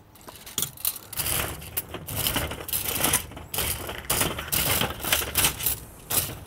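Charcoal briquettes raked across the metal charcoal grid of a La Caja China roasting box with a metal fan rake: irregular scraping, clinking and clattering of coals on metal.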